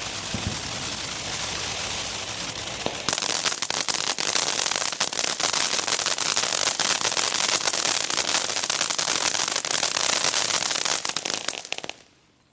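Tricky Goblin firework fountain spraying with a steady hiss, switching about three seconds in to a louder, dense crackling that runs until the fountain burns out shortly before the end.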